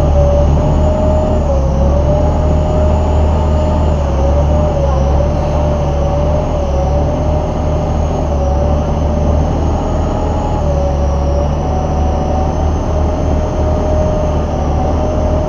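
Steady drone of a Chao Phraya river passenger boat's engine heard on board: a deep rumble with a whine on top that wavers slightly in pitch. Water rushes along the hull.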